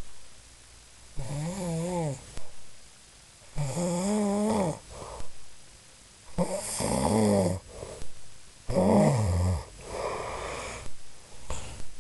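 A man snoring: about five separate snores, each around a second long, with a wavering pitch and short quiet gaps between them.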